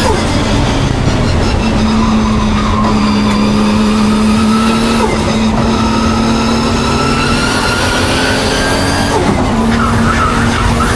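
Nissan Skyline's engine pulling hard on a racetrack lap, its pitch climbing slowly and then dropping sharply at gear changes near the start, about five seconds in and about nine seconds in. The owner calls the car misfiring.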